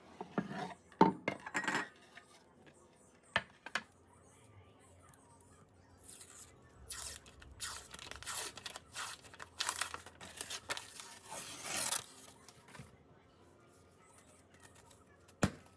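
Household handling sounds: a few clinks and knocks, then several seconds of dry rustling and tearing noise.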